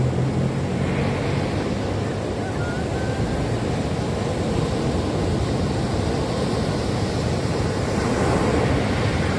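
Ocean surf on a sandy beach: waves breaking and washing up the shore in a continuous rush, swelling near the end as a wave breaks close in.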